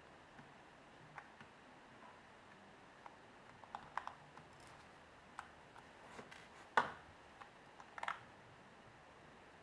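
Faint, scattered light clicks and taps of a small screwdriver and handling on an iPhone 3G as the screws on its bottom edge are taken out. The sharpest click comes about two-thirds of the way in.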